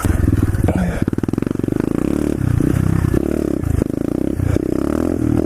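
Pit bike engine revving under throttle as the bike rides off, its pitch rising and falling several times as the throttle is worked.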